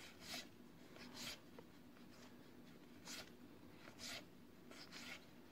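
Faint swishes of cardboard trading cards being slid off a hand-held stack one at a time, about one swish a second.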